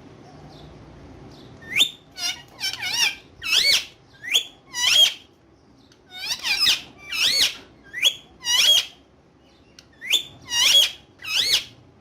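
Ringneck parrot giving a string of about fifteen short, shrill screeches, each rising and falling in pitch. They come in quick clusters with brief pauses between.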